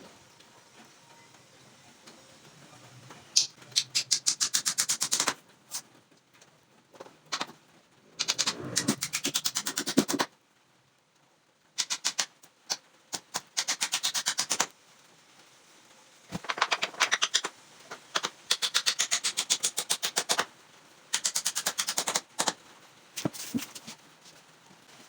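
A power screwdriver or impact driver driving screws into the cabinet's wood, giving rapid clicking rattles in runs of one to three seconds with short pauses between them, about six runs in all.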